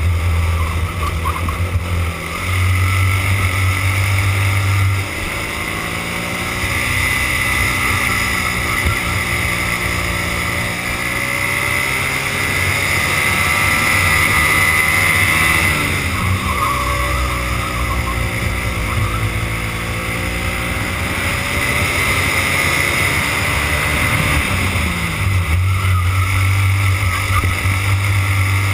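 Racing go-kart engine heard onboard, its pitch climbing steadily along the straights and dropping sharply when the driver lifts for corners: once just past halfway and again near the end.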